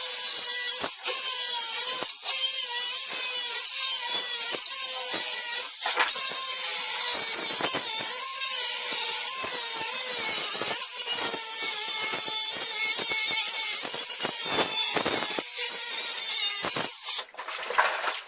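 Angle grinder cutting through the metal hinges of a safe: a steady high whine over a harsh grinding hiss, dipping briefly near the end.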